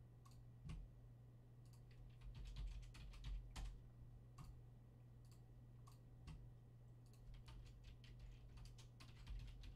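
Faint typing on a computer keyboard: irregular runs of keystroke clicks, busiest about two to four seconds in and again near the end, over a low steady hum.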